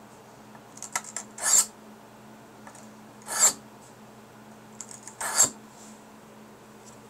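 Stainless steel kitchen knife edge drawn across the ceramic side of a Fallkniven DC4 whetstone: three short scraping strokes about two seconds apart, with a few light clicks of blade on stone between them.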